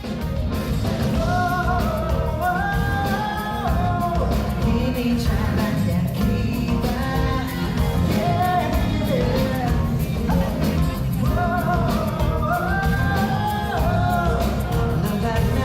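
Background music: a pop-rock song with a sung melody over a full band, sung in two long phrases.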